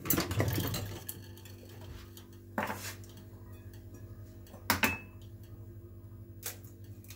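Clatter of an egg and hands against a ceramic mixing bowl, then three sharp taps about two seconds apart as eggs are cracked on the bowl and separated, over a steady low hum.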